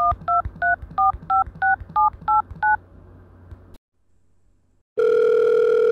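Phone keypad dialing tones: nine quick two-tone beeps, about three a second, as a number is dialed. About five seconds in, a steady phone line tone begins as the call goes through.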